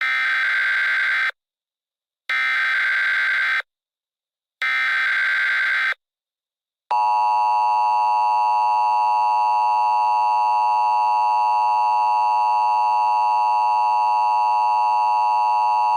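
Emergency Alert System header: three short bursts of screeching SAME digital data, about a second apart. Then, about seven seconds in, the steady two-tone EAS attention signal starts and holds, marking the start of an alert message.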